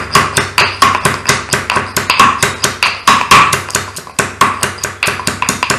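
Chopped ginger being pounded with a stone crusher (chathakallu): a fast, steady run of knocks, about four or five a second.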